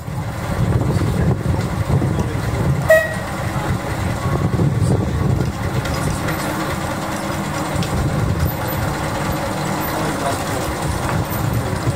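Narrow-gauge train running along the track with a steady rumble, and a single sharp knock about three seconds in.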